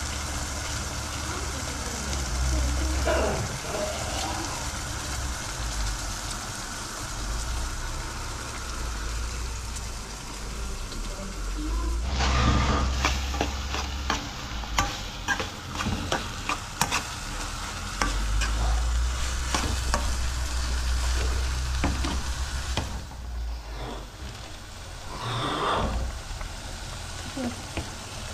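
Chopped onion and tomato sauce sizzling in a frying pan over a gas flame, with a metal spoon stirring and scraping through it and clinking against the pan many times in the middle stretch.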